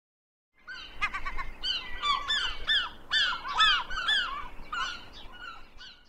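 Birds calling: a rapid series of short, harsh calls, each bending in pitch, several a second. It starts about half a second in and fades near the end.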